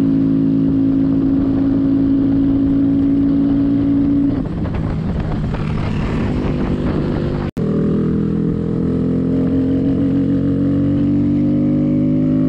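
A mini motorcycle's small single-cylinder engine running at a steady cruise under the rider. A few seconds in, the note turns rough and uneven and cuts out for an instant. It then comes back steady and climbs slowly in pitch as the bike accelerates.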